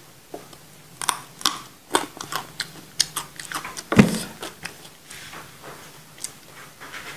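Crisp crunching as a raw papaya leaf stalk is bitten and chewed close to a lapel mic: a quick run of crunches with one louder thud about four seconds in, then fainter chewing.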